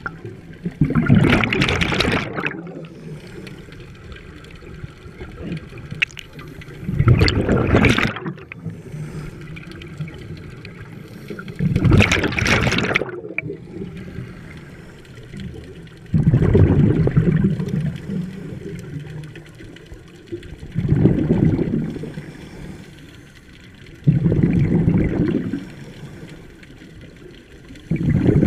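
Scuba diver breathing through a regulator underwater: a loud gurgling rush of exhaled bubbles about every four to five seconds, six times, with quieter breathing in between.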